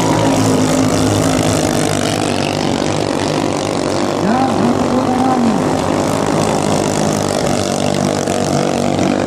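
Racing ketinting longtail-boat engines of the 500 cc class running flat out, a dense steady engine noise. About four seconds in, engine notes rise and fall briefly, as when boats pass or rev.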